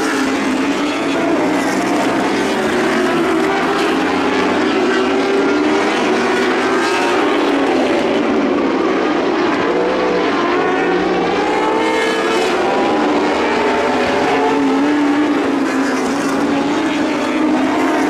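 Lightning sprint cars racing, several engines running at once, their pitch rising and falling continuously as they throttle on and off.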